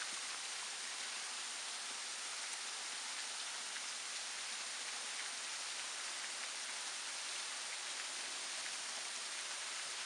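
Thin waterfall spilling down rock ledges: falling water splashing in a steady hiss, with scattered drips pattering through it.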